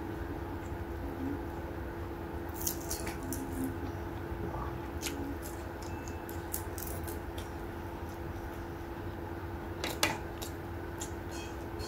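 Eating by hand: fingers picking through rice and tearing apart a cooked Indian mackerel on the plate, making scattered small wet clicks and crackles, with a louder click about ten seconds in. A steady low hum runs underneath.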